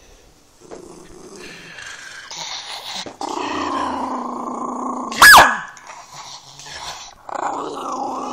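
Miniature pinscher growling in long, rough stretches, with one short, sharp bark about five seconds in that is the loudest sound.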